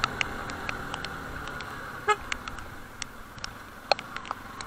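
Motorcycle horn giving one brief, stuttering beep about two seconds in; the horn is faulty, its relay having gone bad, so it does not sound properly. Scattered sharp clicks and a steady hiss run underneath as the bike rolls along.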